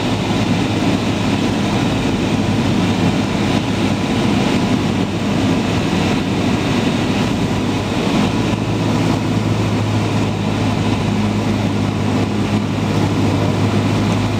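Cessna 172's piston engine and propeller droning steadily, heard inside the cabin, holding an even pitch and level throughout while it flies the downwind leg.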